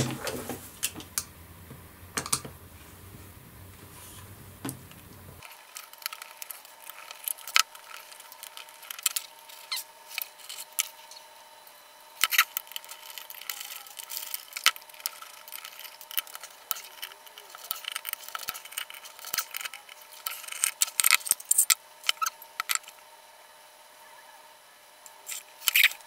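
Screwdriver working small screws out of an aluminium e-bike motor controller case, with irregular clicks and taps as the screws and tools are set down on a cutting mat and the metal case is handled; the taps are busiest in the second half.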